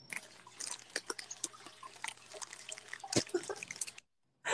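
Faint, irregular clicking and crackling with one sharper tap about three seconds in, after which the sound drops out completely for the last half second.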